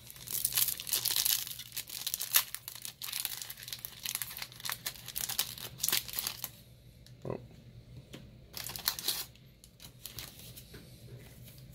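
Foil wrapper of a Pokémon trading-card booster pack crinkling and tearing as it is ripped open and the cards are slid out. The crinkling is dense for about the first six seconds, then gives way to a few sparse rustles.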